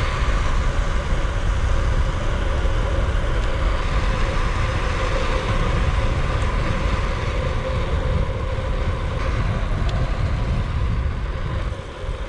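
Steady rushing wind and rolling noise from a moving bicycle, with a strong low rumble, easing off near the end as the bike slows.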